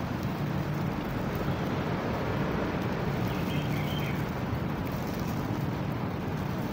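Steady rain falling, an even noise that holds at one level without breaks.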